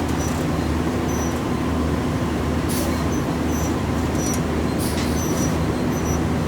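Steady low rumble of an idling diesel truck engine with a constant hum. A couple of brief sharp clinks come near the middle, with faint short high chirps over the top.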